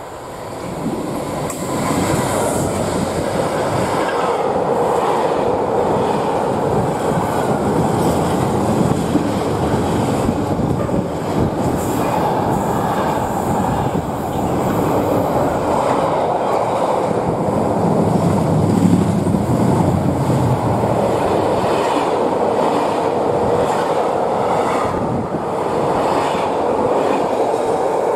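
Diesel-hauled container freight train passing through the station at speed: the sound swells quickly in the first couple of seconds as the locomotive arrives, then holds as a steady noise of wagon wheels on the rails with repeated clicking.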